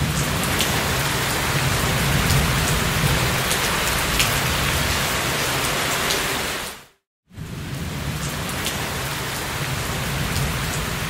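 Steady rain falling, with sharp ticks of single drops hitting close by now and then. The sound cuts out for a moment about seven seconds in, then the rain goes on.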